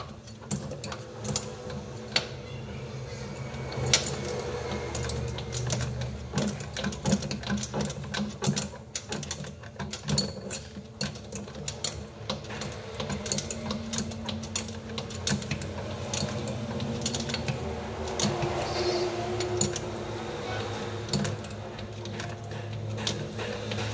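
Irregular clicks and light metallic knocks of a wrench and plastic-and-metal fittings being worked by hand, tightening an RO filter's feed-water valve onto the cold-water outlet, over a low steady hum.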